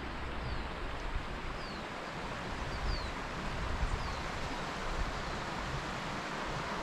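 Steady rush of a shallow rocky moorland stream running over stones, with a bird repeating a short, high, falling note about once a second.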